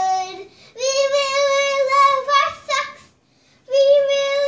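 A young girl singing unaccompanied in a high voice, holding long drawn-out notes, with a short pause about three seconds in.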